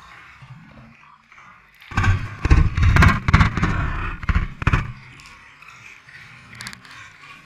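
Fast creek water rushing and splashing over a small model boat's hull and deck. About two seconds in, a three-second burst of heavy splashes and knocks strikes the boat and the microphone housing, then it settles back to a steady rush of water.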